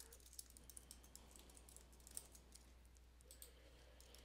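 Faint typing on a computer keyboard: a scatter of soft, irregular key clicks over a low steady hum.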